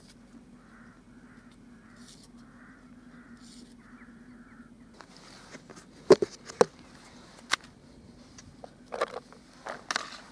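A bird calling in a regular series of short calls, about two a second, for the first half. After that come several sharp knocks and clatter, the loudest about six seconds in and more near the end.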